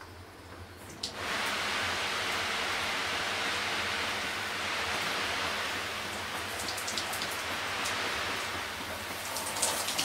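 Water starting to spray from a newly fitted handheld shower head about a second in, then a steady hiss of shower spray.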